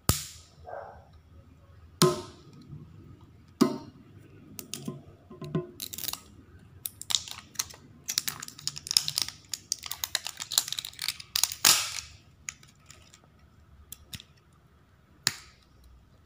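Thin plastic-foil wrapper of a toy capsule ball being torn open along its tear strip and peeled off, crinkling and crackling. There are a few sharp crackles at first, a dense run of crinkling in the middle, and a last snap near the end.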